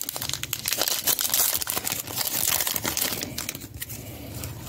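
Foil wrapper of a trading-card pack crinkling as it is opened by hand, with a quick run of crackles and clicks, then cards sliding and flicking against each other as they are sorted.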